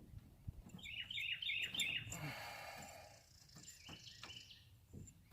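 A bird chirping: a quick run of about five down-slurred chirps about a second in, then fainter calls.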